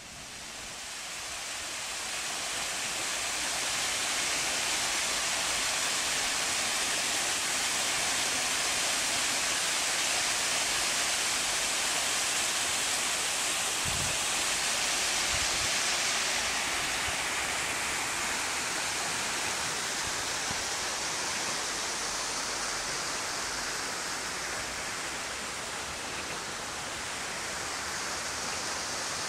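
Small garden waterfall splashing steadily into a pond, a constant rushing hiss. It fades in over the first few seconds and turns softer and duller a little past halfway.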